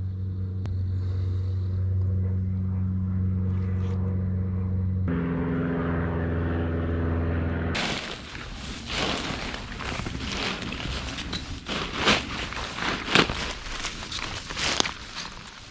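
A steady low engine-like hum, shifting pitch once about five seconds in, then cutting off abruptly to rustling and crackling with sharp clicks, like movement through dry leaves.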